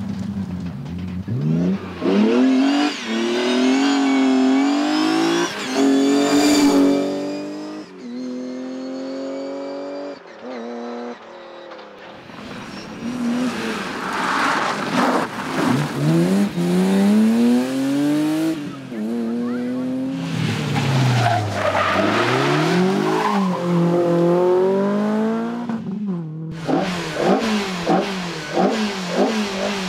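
Rally car engines driven hard, in several passes one after another. Each engine revs up through the gears with a drop in pitch at each shift, then the revs fall away when the driver lifts off and brakes, with some tyre noise.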